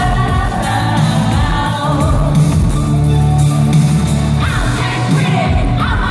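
Live pop song: a sung lead vocal through a microphone over an amplified backing track with a heavy bass line.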